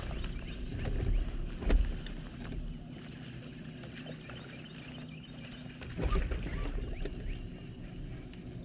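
Sounds on a bass boat while a hooked bass is played on a bent rod: a steady low hum with faint ticks and a few dull thumps, the loudest starting about six seconds in.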